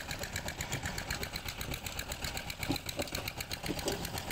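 Engine driving a sugarcane crusher running steadily, with a fast, even beat.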